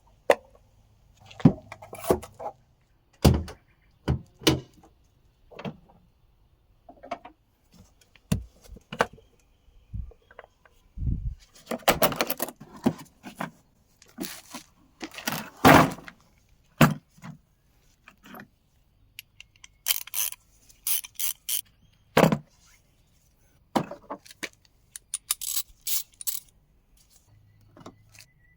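Tools and parts being handled during an oil change: irregular clinks, knocks and rattles, with a few longer scraping stretches.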